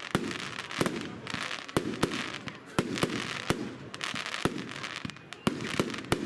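Evolution 'Snowstorm' firework cake firing shot after shot: sharp bangs about two to three a second, with a steady hiss between them.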